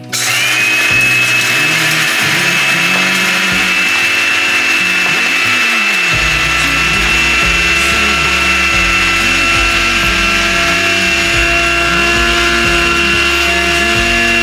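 Electric coffee grinder grinding beans: a steady, loud motor whine that spins up at the start and winds down at the end.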